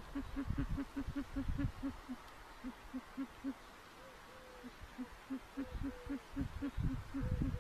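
Owl hooting at the nest box: a fast run of short, low notes, about five a second, with a brief pause and a few short sliding calls a little higher. Dull bumps come in near the start and again near the end.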